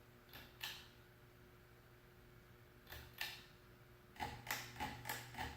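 Pull-chain switches on a Design House Manhattan ceiling fan clicking as the chain is pulled and released: two pairs of sharp clicks, then a quick run of several clicks near the end, over a faint steady hum.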